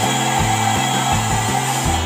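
Hair dryer converted to a 12-volt blower, its motor and fan running with a steady whir, under background music with a stepping bass line.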